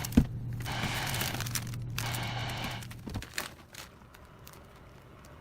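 Crinkling and rustling while a chili pepper is handled and prepared, in two stretches, over a steady low hum that stops about three seconds in; a few light clicks follow.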